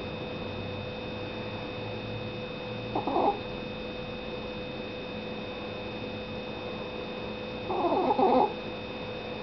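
Miniature pinscher snoring in deep sleep: two loud, pulsing snores, a short one about three seconds in and a longer one near the end.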